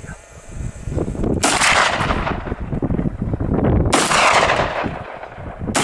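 Three gunshots fired at running wild boar, each sharp crack followed by a long echo that takes over a second to fade; the second and third come about two and a half and then under two seconds after the one before.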